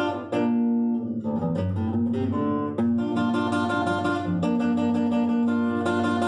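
Solo nylon-string classical guitar played fingerstyle: a slow fox incaico melody of plucked single notes over bass notes, with a chord struck near the start and notes left to ring.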